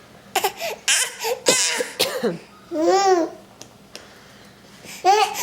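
11-month-old babies vocalising: short cough-like bursts and babbling in the first two seconds, then one long high-pitched squeal that rises and falls about three seconds in, and more squeals near the end. These are babies trying to burp.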